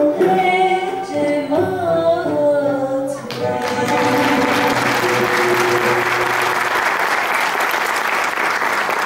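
Closing phrase of a Turkish ilahi in makam Hüseyni, sung by a soloist and choir with a Turkish classical ensemble. The song ends about three and a half seconds in, and audience applause breaks out and keeps going.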